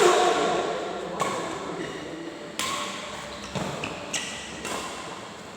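A rally of racket strikes in a large echoing hall, a sharp hit about every second or so, the loudest right at the start.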